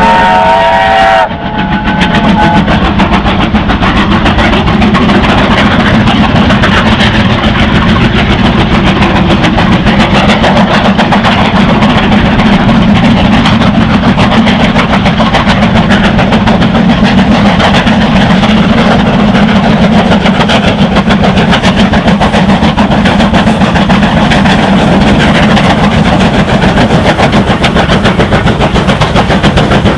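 Several USATC S160 2-8-0 steam locomotives coupled together, working hard as they pull a train past, with a fast, dense stream of chimney exhaust beats. It opens with a held chord of steady tones that cuts off just over a second in.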